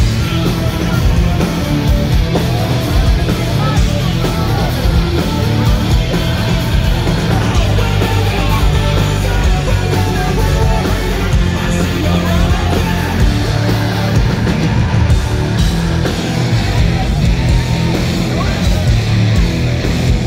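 A punk rock band playing loud and without a break: distorted electric guitars, bass and drums, heard from within the crowd.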